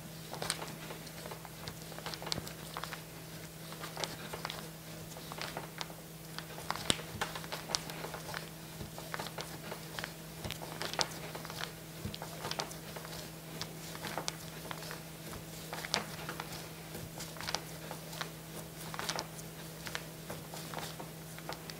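A plastic two-part burst pouch is drawn back and forth over a newspaper-covered table edge, mixing the polyurethane inside. It gives soft, irregular crinkles and scrapes over a steady low hum.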